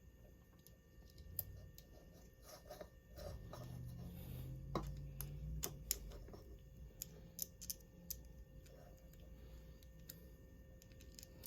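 Faint, scattered clicks and light taps of hands working BMS wiring onto battery cells, with a low handling rumble through the middle.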